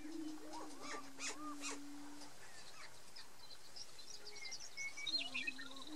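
Greater prairie-chickens booming: a deep, steady cooing note held for about two seconds, then again near the end. Over the first booms come higher rising-and-falling whooping calls, and faint high chirps run through.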